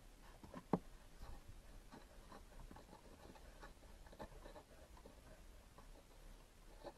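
Faint, irregular clicks and light scraping of a hand wrench turning a 10 mm bolt, with one sharper click under a second in.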